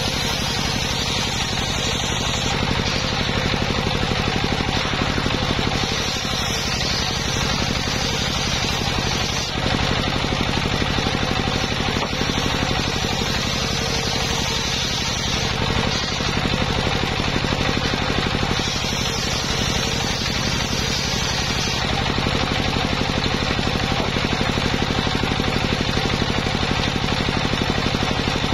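Engine-driven circular saw bench running steadily through V-belts, its large blade ripping a wooden board lengthwise, with the engine's fast even pulse under the cutting noise.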